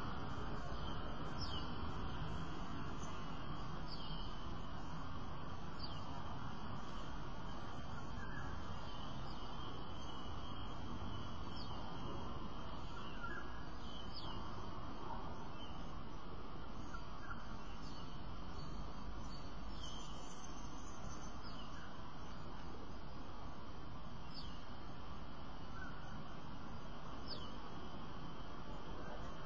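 Steady outdoor background noise with faint, short, high bird chirps every one to three seconds.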